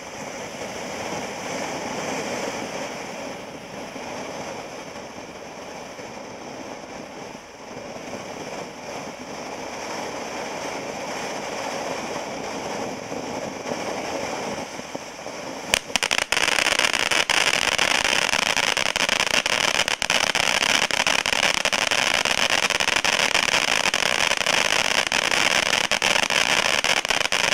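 WD3012 Diamond Rain fireworks fountain burning with a steady rushing hiss. About sixteen seconds in, a sharp crack, and it switches to a much louder, sharper sizzling spray full of fine crackle.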